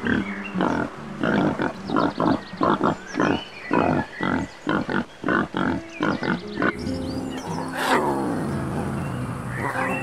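Wild boar grunting in a rapid series of short, irregular grunts, followed about eight seconds in by a lion's roar that falls in pitch.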